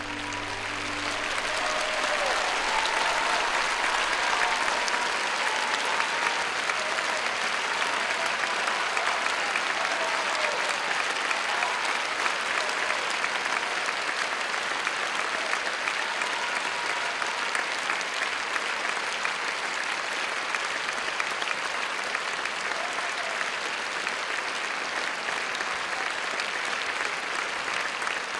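A large theatre audience applauding, the clapping swelling over the first two seconds and then holding steady, with a few voices calling out over it early on. The last held notes of the music die away at the very start.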